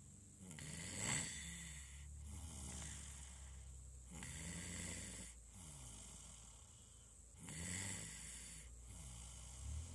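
Steady rhythmic snoring in slow breaths, about six of them, roughly one every one and a half seconds. The loudest is about a second in.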